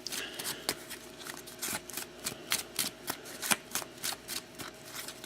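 A deck of hockey cards being shuffled by hand: a rapid, irregular run of light card flicks and snaps.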